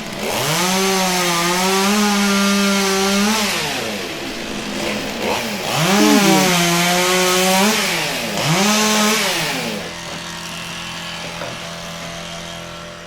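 Chainsaw revved up three times, each burst held briefly and then dropped back to a steady idle; the first burst lasts about three seconds and the last is the shortest. A hissing cutting noise rides on each burst, as the chain bites into wood.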